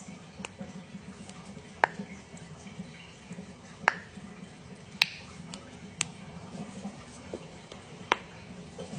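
Joints cracking: a series of sharp single pops, about six of them spaced a second or two apart, the loudest about two and four seconds in.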